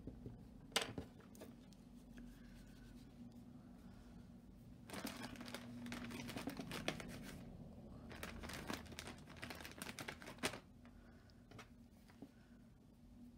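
Paper towel crinkling as it is crumpled and scrunched in the hand, in two spells of crackle, after one sharp click about a second in.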